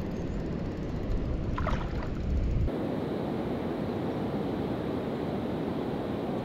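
Wind rumbling on the microphone over water. About two and a half seconds in, it gives way to a steady, even wash of waves.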